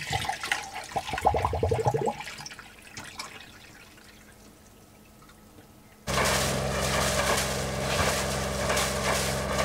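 Liquid poured from a jug into a Volvo Penta D1-30 three-cylinder diesel's opened raw-water cooling circuit for about two seconds, then a quiet stretch. About six seconds in, a sudden change to the engine running steadily at 2500 rpm with its cooling water splashing out of the hull outlet at the stern; this part is louder than the pour.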